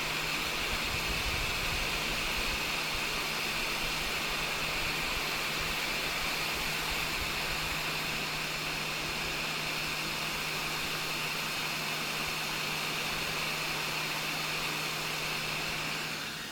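A small electric fan or blower running with a steady whirring hiss and a low hum, dying away near the end as it stops.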